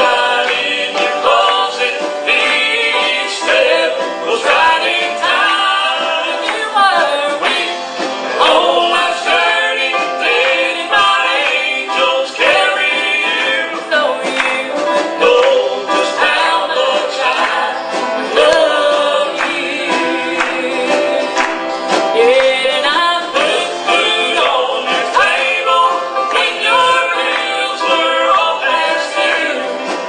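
Gospel singing by a group of voices.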